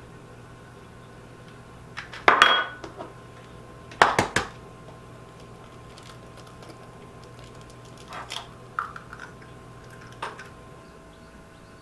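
Eggs being cracked: two sharp knocks of shell against a hard edge, with a clink of crockery, about two and four seconds in. Lighter clicks of shell and china follow as the egg is opened into a small china saucer.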